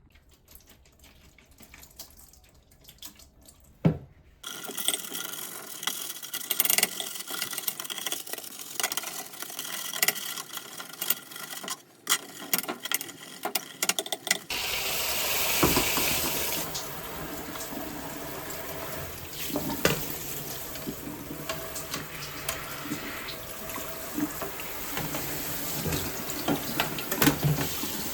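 Water running from a tap over things being washed, with clicks and clatter of handled parts. A sharp knock comes about four seconds in, before the water starts, and from about halfway the flow runs steady and full.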